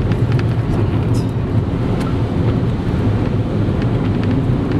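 Steady low rumble of a car's engine and cabin noise, with scattered light ticks.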